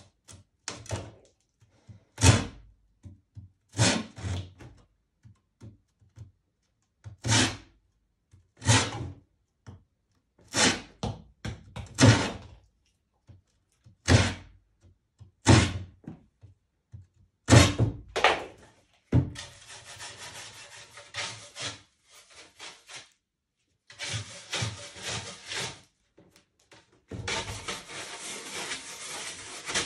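Flat metal scraper dragged across a painted stretched canvas in short, sharp strokes, one every second or two. From about two-thirds of the way in, the scraping turns into longer continuous rasping runs.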